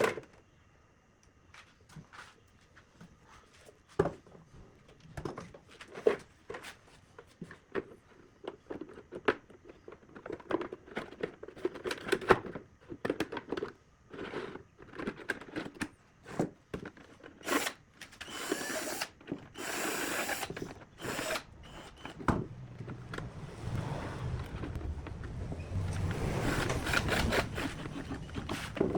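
Workshop work sounds: a string of knocks and taps from tools and wood being handled, then several short hissing bursts and a longer rushing noise near the end.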